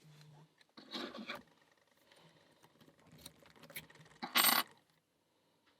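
Small metallic clicks and scrapes of a Master Lock 150 padlock being worked, with a short metal rattle about a second in and a louder, brief metallic clatter about four and a half seconds in.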